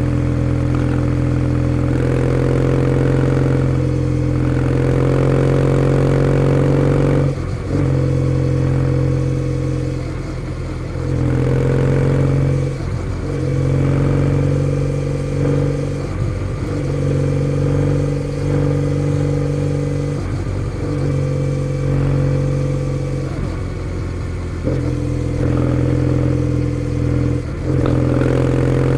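Kawasaki W650's air-cooled parallel-twin engine through a POSH W1 full exhaust, pulling at fairly steady revs while riding. The note drops away briefly about seven times as the throttle is closed and picked up again.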